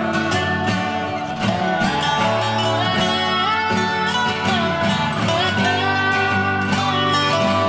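Background music led by guitar, steady throughout.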